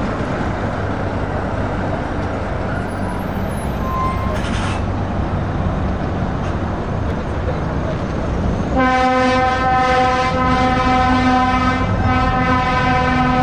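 Heavy lorry diesel engines running as trucks move off in a queue, then from about nine seconds in a truck air horn sounds in long, loud blasts that carry to the end.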